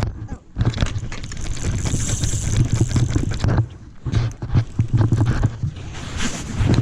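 Wind buffeting the microphone in gusts, with irregular rustling and scraping.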